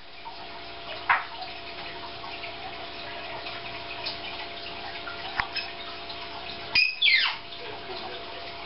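A steady hiss of running water with a faint hum under it. Short, sharp falling squeaks come about a second in and again twice in quick succession about two-thirds of the way through.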